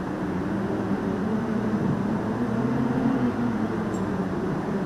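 Low, sustained closed-lip humming, held on a steady pitch that drifts slowly up and down, over a background hiss.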